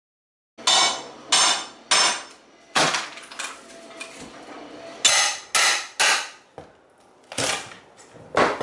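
Steel pry bar striking and levering up old wooden floorboards: a run of sharp metal-on-wood knocks, about ten, irregularly spaced, starting about half a second in.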